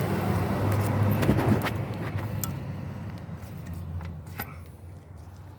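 A motor vehicle passing by, its engine hum swelling over the first second or so and then slowly fading away, with a few light clicks over it.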